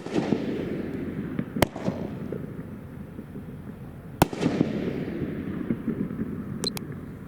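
Aerial shells from a 2-inch, 9-shot consumer firework cake bursting, with a sharp bang every couple of seconds. Each bang is followed by a fading crackling hiss, and there is a quicker pair of smaller pops near the end.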